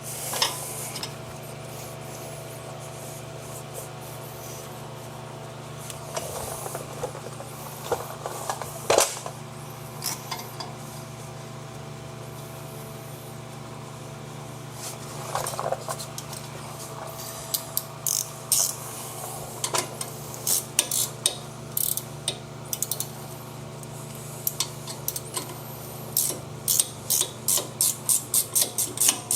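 Hand ratchet clicking as the front brake caliper bolts are run in, after some clinks of metal tools and parts being handled; from about halfway the clicks come in runs, settling into an even two or three clicks a second near the end. A steady low hum runs underneath.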